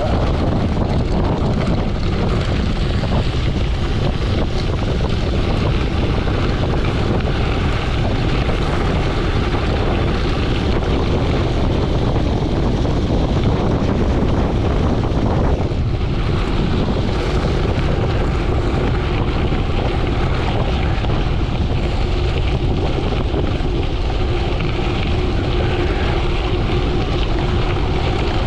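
Steady, loud wind rush on the microphone of a gravel bicycle descending fast, with the tyres rumbling over the gravel underneath.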